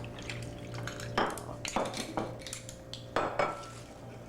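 Glassware clinking several times as rum and coke drinks are being mixed and poured, some clinks ringing briefly, over a steady low hum.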